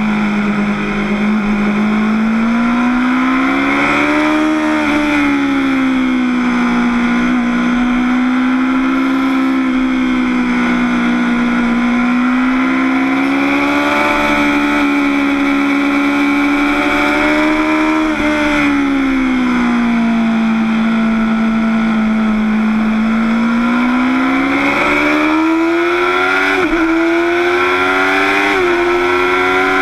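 Motorcycle engine at speed on a race track: the engine note rises and falls gently with the throttle through the corners, then climbs hard on the straight near the end, dropping briefly twice as the rider shifts up.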